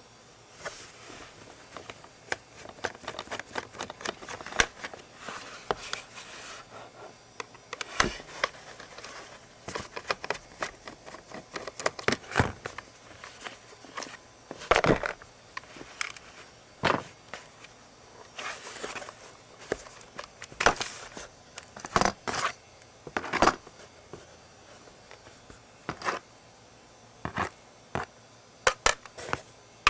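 Plastic parts of a Dyson vacuum cleaner's motorized brush head being handled and taken apart: irregular clicks, knocks and short scrapes, some spaced a second or more apart, others in quick clusters.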